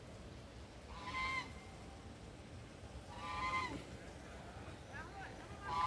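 A goose honking: three calls spaced a couple of seconds apart, each about half a second long, the last near the end.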